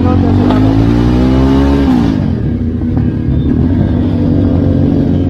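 Motorcycle engine revving up with a rising note for about two seconds, then dropping away sharply, over the steady low running of several motorcycle engines riding together.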